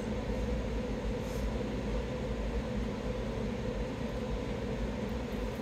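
Steady low background rumble and hum of a large room, even throughout with no distinct event standing out.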